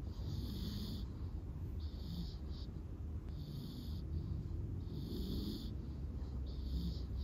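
Staffordshire bull terrier puppy snoring in its sleep, a hissy snore about every one and a half seconds, five in all.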